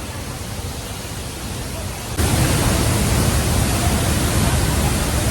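Steady rushing of a waterfall, jumping suddenly louder about two seconds in.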